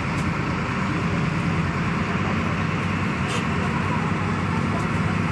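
Intercity bus running along at road speed, heard inside the cabin near the driver: a steady engine drone with road and tyre noise. A brief click sounds about three seconds in.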